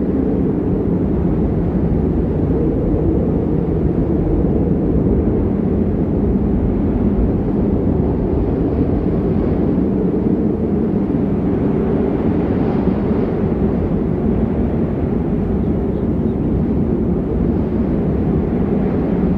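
Snow ambience sound effect: a steady, low rumbling noise that does not change, with no separate events.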